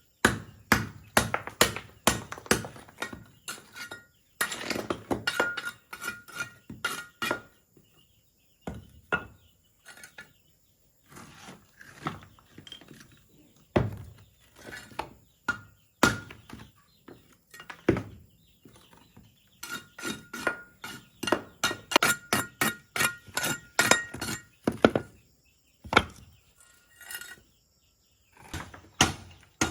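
Repeated chopping strikes on bamboo, coming in irregular runs of quick blows separated by short pauses. During the faster runs a ringing note sounds under the blows.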